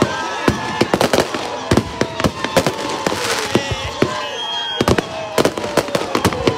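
Aerial fireworks going off in quick succession, many sharp bangs and crackles close together, with voices heard underneath.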